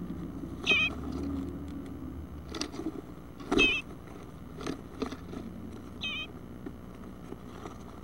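Three short, wavering bluebird calls, about two and a half seconds apart, with a few knocks and scrapes from nestlings moving inside the wooden nest box.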